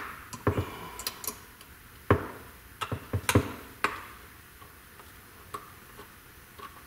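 Light clicks and taps of a small hand tool working on a disassembled Wi-Fi security camera's housing. About nine sharp clicks come in the first four seconds, then only a couple of faint ones.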